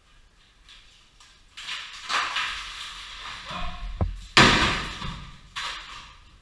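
Loose rock being purged from a cave chimney: stones scraping and clattering down, with a loud crash of falling rock about four and a half seconds in.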